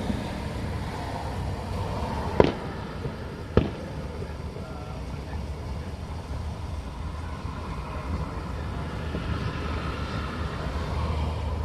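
Two firework bangs about a second apart, the first louder, over a steady low rumble.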